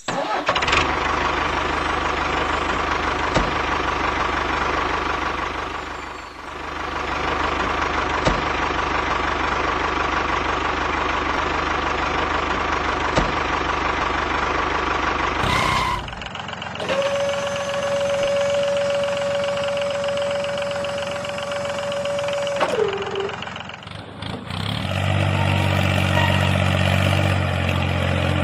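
Small motor and gearbox of a homemade model machine running in several cut-together stretches. First comes a steady whine over grinding noise with occasional clicks. After a cut there is a single steady whine that sinks in pitch as it spins down about 23 seconds in. A low engine-like hum follows near the end.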